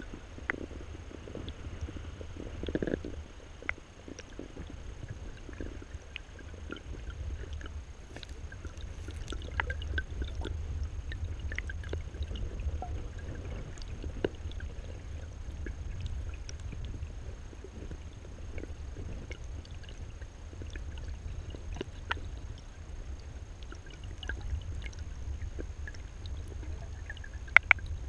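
River current heard through a camera held underwater: a steady low rumble with scattered small clicks and ticks.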